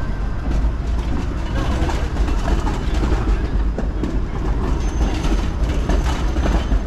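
Streetcar running along its rails, a steady heavy rumble with wheel clicks over the track. A thin high whine from the wheels joins about five seconds in.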